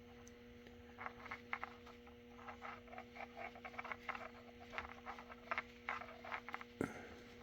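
Faint, irregular small scratching and clicking as thin baling wire is worked by hand through the end of a bungee cord, over a steady low electrical hum.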